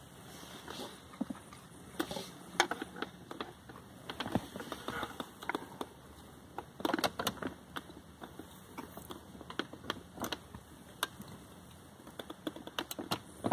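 A 1997 Toyota Camry's plastic console trim around the cigarette lighter being pried at with a thin metal tool: irregular clicks, taps and scrapes of metal on hard plastic, bunched in short clusters.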